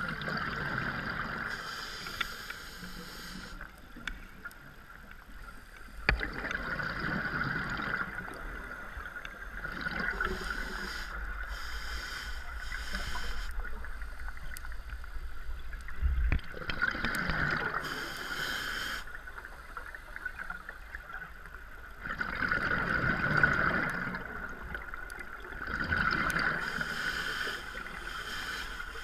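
Scuba diver breathing through a regulator underwater: a hissing inhalation and a bubbling exhalation in turn, a full breath about every five seconds, heard through an underwater camera housing.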